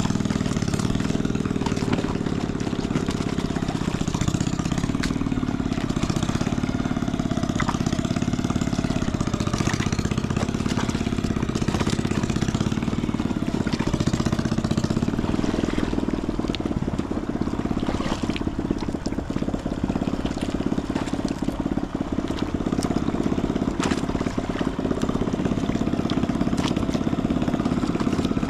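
A small engine running steadily at an even speed, with a few short knocks over it.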